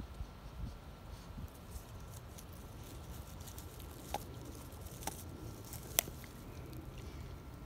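A dog gnawing on a stick: faint scattered crunching with three sharp cracks about four, five and six seconds in, the last the loudest.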